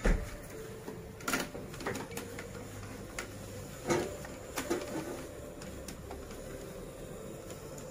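Several sharp clicks and knocks from equipment being handled, the loudest right at the start and the rest over the next five seconds, over the faint steady hum and hiss of a facial steamer running.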